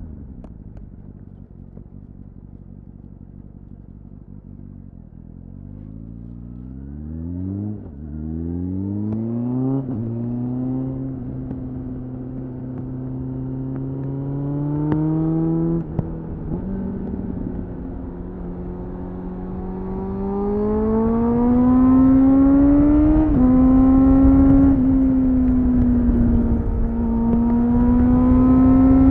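2001 Suzuki GSF 600 Bandit's air/oil-cooled inline-four through a BOS slip-on exhaust, heard onboard. It is quiet and low at first, then accelerates through the gears: the pitch climbs and drops back at each upshift, several times. In the second half it pulls more steadily, with wind rushing over the microphone growing louder.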